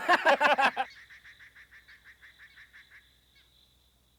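A loud animal cry lasting under a second, then faint jungle ambience of rapidly repeated insect-like chirps over a thin steady high tone.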